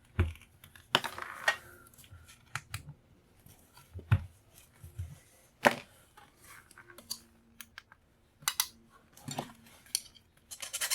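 Irregular clicks, taps and short scrapes of a hand tool working against a brass faucet handle, prying off the handle caps to reach the screws.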